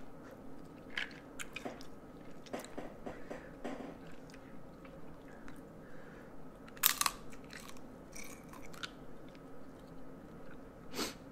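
Eating crab legs: wet chewing mixed with sharp cracks and clicks as the shell is broken and peeled apart by hand. The loudest crack comes about seven seconds in, another near the end.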